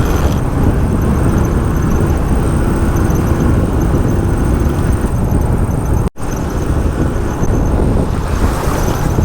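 Motorcycle riding at road speed: wind rushing over the microphone, with engine and road noise underneath. The sound cuts out for an instant about six seconds in.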